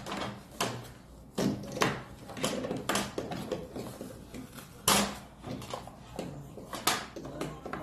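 A series of light clicks and knocks from handling the electric door lock mechanism and its 12-volt power supply wiring, spaced irregularly about a second apart, with the loudest knocks about five and seven seconds in.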